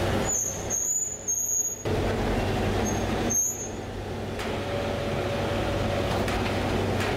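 Electric chain hoist lifting a loaded steel crate, its motor giving a high whine twice, first for over a second near the start and then briefly about halfway, over a steady machinery hum.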